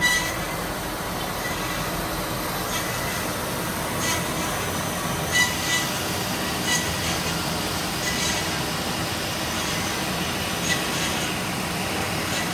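Addison S-300HB automatic bandsaw running, a steady mechanical noise with a faint high tone and a few brief, sharp high squeaks or ticks scattered through it.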